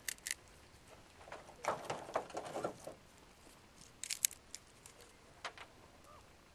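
Small fire crackling and popping inside a folding steel camp stove: scattered sharp ticks just after the start, about four seconds in and again a little later, with a patch of soft rustling between about one and three seconds in.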